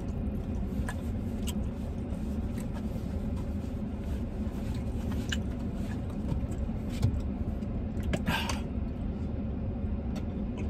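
Steady low rumble of a parked truck idling, heard inside the cab, with scattered small clicks and a brief swish about eight seconds in.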